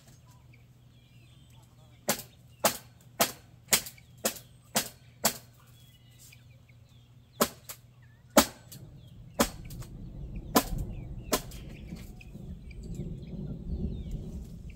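A run of sharp knocks: seven evenly spaced at about two a second, then a handful more at irregular gaps, the loudest about eight seconds in. A low rumbling noise builds through the second half.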